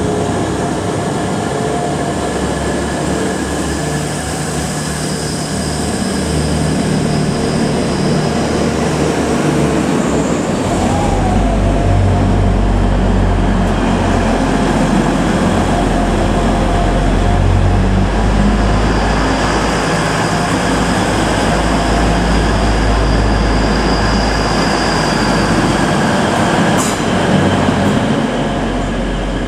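Hull Trains Class 180 diesel multiple unit pulling away and accelerating past close by, its underfloor Cummins diesel engines running under power. The low engine drone grows stronger and deeper about eleven seconds in. A faint high whine comes and goes, and there is a single sharp click near the end.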